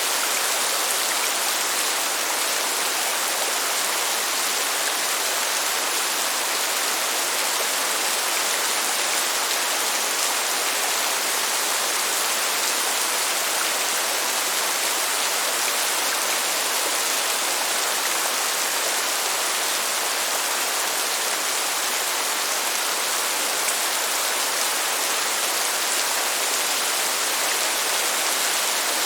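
Heavy rain pouring down in a steady, dense hiss of countless drops, unchanging throughout.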